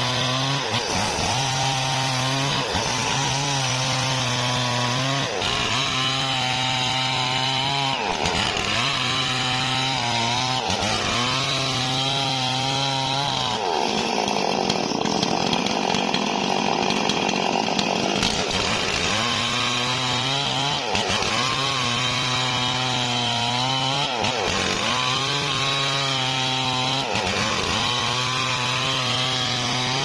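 Stihl MS440 two-stroke chainsaw cutting through a mahogany log at full throttle. The engine note drops each time the chain bites under load and climbs back, every two to three seconds, with a longer stretch of heavy load about halfway through.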